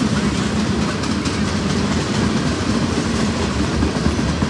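Freight train cars rolling past: a steady rumble of steel wheels on rail, broken by rapid knocks as the cars cross the rail joints, with the hiss of falling rain over it.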